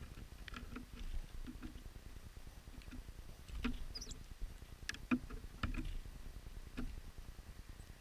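Irregular soft taps and clicks of small birds pecking seed and hopping on the snowy wooden stand beside a seed feeder. One brief high chip comes about four seconds in.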